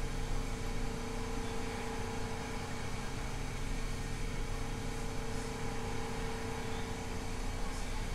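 Steady mechanical hum with a constant tone and an even hiss.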